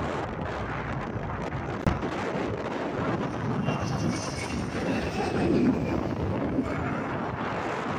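A twin-engine turboprop floatplane, a DHC-6 Twin Otter, passing low overhead with a steady engine drone. A thin high whine shows through in the middle, and the sound is loudest a little past halfway.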